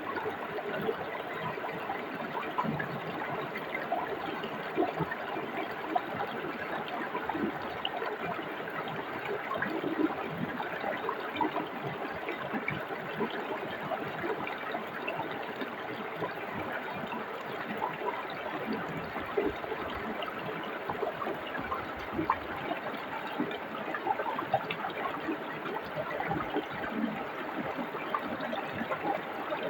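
Forest stream flowing: a steady rushing and trickling, with many small splashes and gurgles scattered through it.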